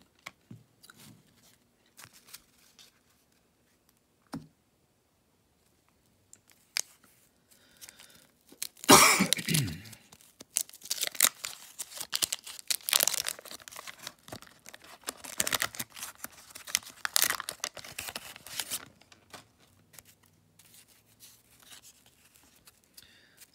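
A 1989 Donruss wax-paper card pack being torn open: a loud rip about nine seconds in, then several seconds of wax paper crinkling as the wrapper is peeled off the stack of cards. Before the tear there are only a few faint clicks of cards being handled.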